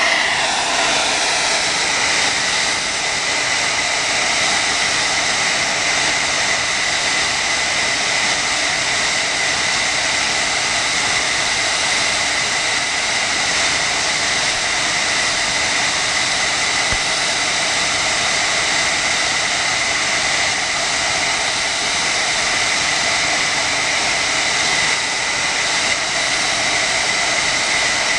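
Hand-held blow dryer running steadily on high at close range: loud rushing air with a thin steady whine over it. It is heating a phone's front glass to soften the adhesive so the glass can be separated.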